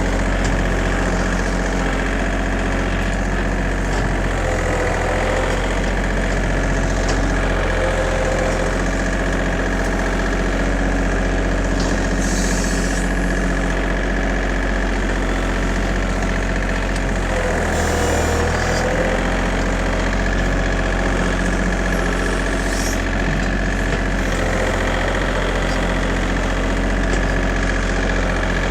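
John Deere 2032R compact tractor's three-cylinder diesel engine running steadily while working, with a slight wavering whine over the engine hum.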